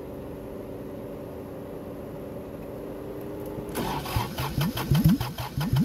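Kubota diesel engine cranked by its electric starter in hard cold: about four seconds in the starter engages and the engine turns over with quick, even compression pulses, about five or six a second, without catching. A steady low hum runs before the cranking.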